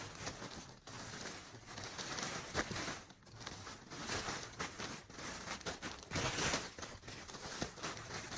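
Dry leaves, brush and plant litter rustling and crunching irregularly as they are pulled and piled over something to cover and hide it.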